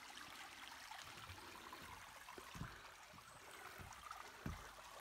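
Faint, steady rushing of a small forest stream running over rocks, with a few soft low thumps.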